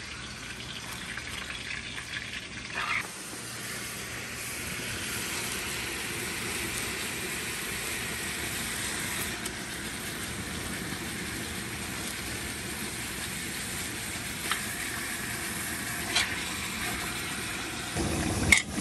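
Marinated wild boar pork sizzling as it browns in hot oil in a cast-iron pot, the sizzle growing louder about three seconds in as the meat goes in. A few sharp clicks of a metal spatula against the pot near the end.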